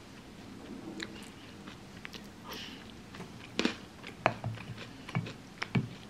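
A spoon clicking and scraping in a ceramic bowl of chocolate cereal and milk, with crunchy chewing. The sharp clicks come every second or so and get louder in the second half.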